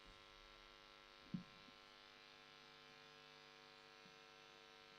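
Faint, steady mains hum and buzz with many overtones, with one short knock about a second and a half in.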